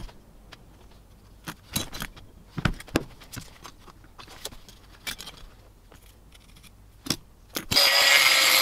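Scattered light metallic clicks and taps as a steel axe head and calipers are handled, then near the end a handheld rotary tool starts up and runs loudly, grinding inside the eye of the axe head.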